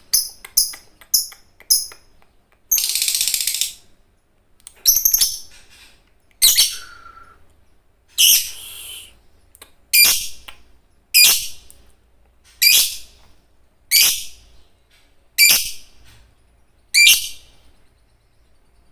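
Lovebird calling: a few quick sharp chirps, then a dense chattering trill lasting about a second, then loud shrill screeches repeated about every second and a half.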